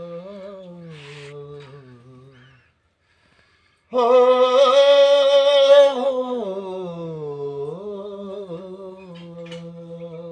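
A man singing long, wordless held notes into a small handheld microphone, in two phrases. A softer phrase fades out after about two and a half seconds; after a short pause a much louder one comes in, its pitch wavering, then dipping and rising again near the end.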